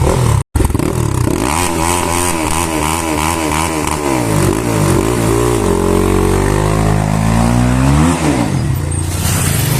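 Motorcycle engine being ridden and revved, its pitch rising and falling several times, then one long climb that drops away about eight seconds in.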